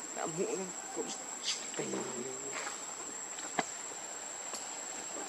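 Insects shrilling in one steady high-pitched tone, with a few brief low voice-like calls in the first half and a single sharp click about three and a half seconds in.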